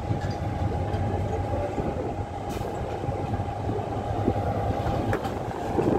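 Diesel locomotive approaching slowly at the head of a train, its engine running with a steady low drone and a thin steady whine above it. A couple of faint clicks come about halfway through and near the end.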